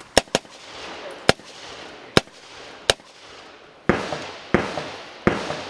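Heckler & Koch semi-automatic rifle firing eight shots: a quick double near the start, then single shots about a second or less apart. The last three ring out with a longer echo.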